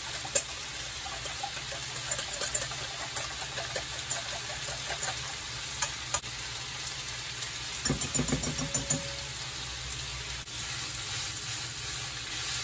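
Noodles sizzling steadily in a hot oiled frying pan. For the first several seconds a wire whisk clicks against a stainless steel bowl as eggs are beaten, then a wooden spatula stirs the noodles, with a short burst of rattling about eight seconds in.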